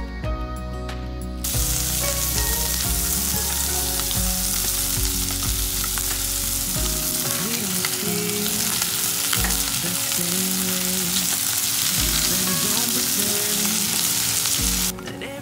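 Sliced onions, sausage and mushrooms sizzling as they fry in a nonstick frying pan, being stirred with chopsticks. The sizzle starts abruptly about a second and a half in and cuts off just before the end.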